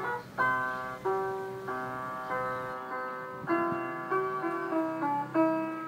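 Background piano music, with notes and chords struck about once a second, each fading before the next.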